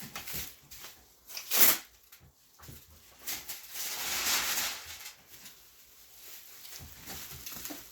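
Plastic packing wrap and cardboard being handled and cut with a box cutter: irregular rustling and crinkling with scattered clicks. A short loud rustle comes about one and a half seconds in, and a longer one around four seconds.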